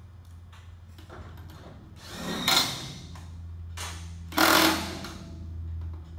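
Power drill run in two short bursts about two seconds apart, driving bolts while the tarp arm system is fitted to the trailer. A steady low hum runs underneath.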